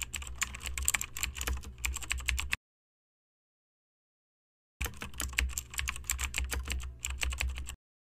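Computer keyboard typing: fast, irregular key clicks in two runs of about three seconds each, with a low hum under them. The first run stops about two and a half seconds in, and after total silence the second starts about five seconds in.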